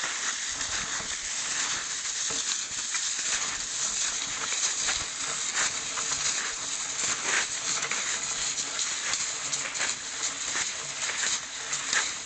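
Snowshoe footsteps crunching through snow as several people walk, with a steady hiss under a walking-pace rhythm of steps.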